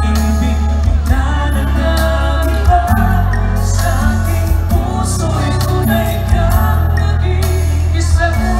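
Live band playing a song with a singer, over heavy bass and regular drum and cymbal hits.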